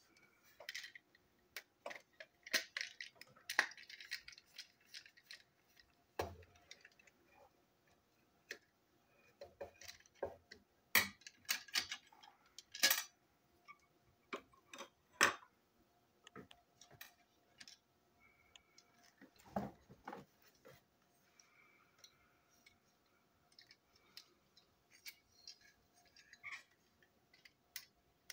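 Small plastic toy train coach parts and a small screwdriver being handled and set down on a tabletop while the coach is taken apart: irregular light clicks and taps, a few sharper knocks in the middle.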